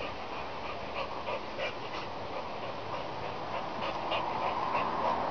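A pit bull making short, irregular sounds as it plays at a fishing buoy hung from a rope, jumping at it and biting it.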